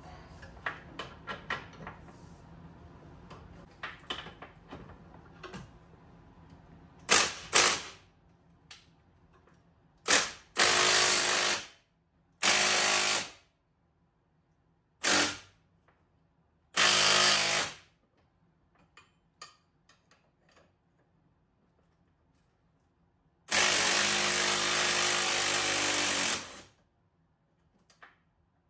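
Impact wrench hammering in bursts of about a second, about seven in all with one longer three-second run near the end, breaking loose the 21 mm bolt and nut of a rear suspension control arm. Light clinks of tools and parts come before the first burst.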